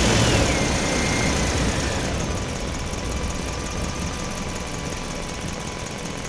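A small motor running steadily; its thin whine wavers in pitch and fades out about two seconds in, and the noise slowly gets quieter.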